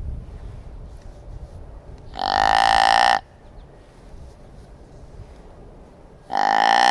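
Hand-held deer grunt call blown twice, imitating a buck's grunt: a loud, drawn-out grunt about two seconds in lasting about a second, and a second one starting near the end.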